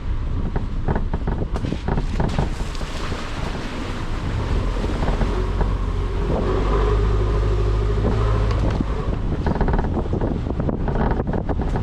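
Car driving, with heavy wind buffeting on the microphone over the engine and road noise. A steady engine note comes through more clearly for a few seconds in the middle.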